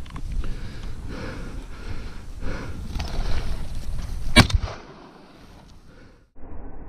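Footsteps pushing through dry brush, then a single shotgun shot about four seconds in, the loudest sound.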